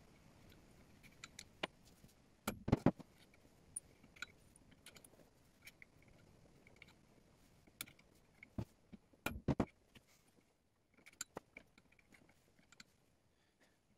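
Small metal clicks and clinks of a steel blade, bar clamp and jig being handled and set up on an anvil, with two louder clusters of knocks, one about two and a half seconds in and one about nine and a half seconds in.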